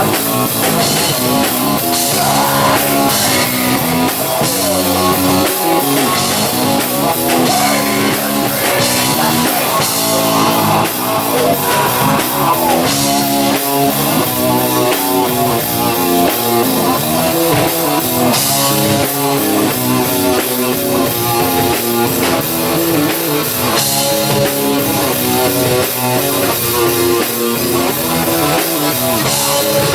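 Live rock band playing an instrumental passage: electric guitar over a drum kit, loud and steady.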